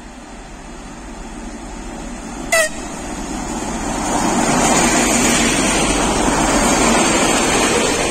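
TEP70 diesel locomotive arriving with a passenger train and passing close by: a short horn toot about two and a half seconds in, then the engine and rolling wheels grow loud as the locomotive goes past, easing a little near the end as the carriages roll by.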